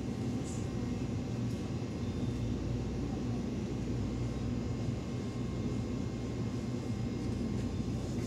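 Steady low hum and rumble of shop background noise.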